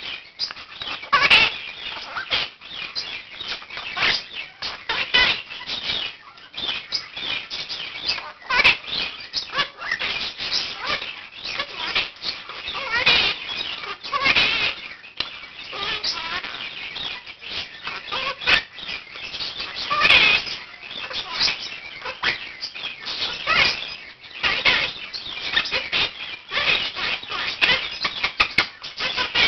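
Pet parrots, a Quaker (monk) parakeet among them, chattering and squawking in a dense, continuous stream of short, sharp calls.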